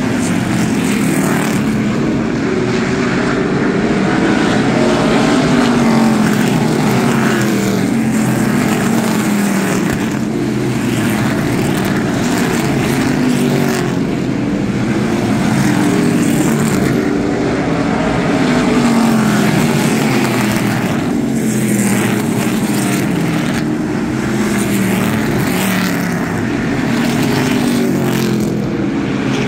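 Several ARCA stock cars' V8 engines running hard at racing speed, loud and unbroken. Their pitch rises and falls in overlapping waves as the cars come past and go round.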